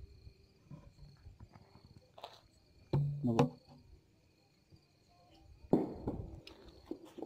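Crickets chirping steadily in a high, even trill. A few louder sudden knocks and rustles cut across it: one about two seconds in, the loudest about three seconds in, and another about six seconds in.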